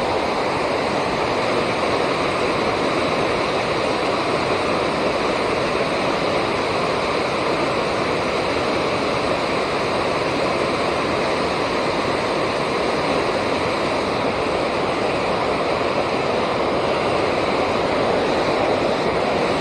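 Steady rush of river water pouring over a dam, with no change throughout.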